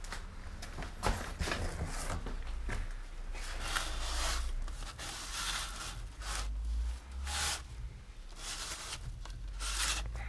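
Rustling and scraping handling noise, a series of swishes coming every second or two, as hands rub over a motocross helmet.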